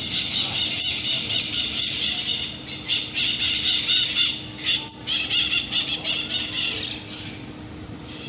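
A group of common marmosets calling: many overlapping high-pitched squeaky chirps and trills, fading out about seven seconds in.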